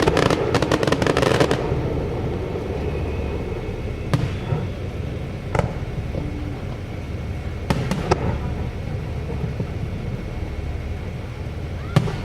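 Fireworks going off: a dense crackle for about the first second and a half, then a handful of separate bangs spaced a second or more apart, with the last one near the end.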